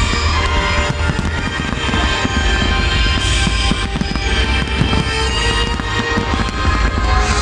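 Large fireworks display: many aerial shells bursting in rapid, overlapping succession, with music playing alongside.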